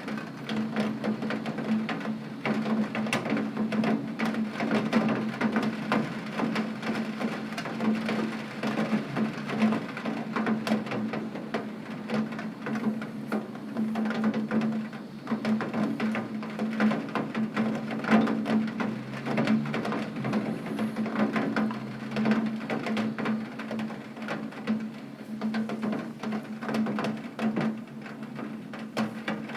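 Heavy rain striking a window pane: a dense, irregular patter of drop impacts, with a steady low hum underneath.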